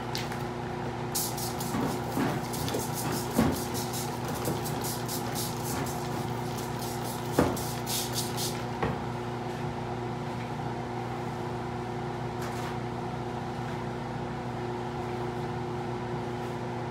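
Laminar flow hood blower humming steadily, under a rapid run of short hissing sprays from a hand-pump alcohol spray bottle, from about a second in until about eight seconds in, with a few light knocks of handling. The gloves are being sprayed down with alcohol to keep them sterile.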